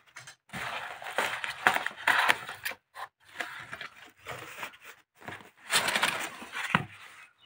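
Cardboard carton being opened by hand: plastic packing strap pulled off and the flaps pried up and folded back, giving irregular scraping and rustling in short bursts with brief pauses.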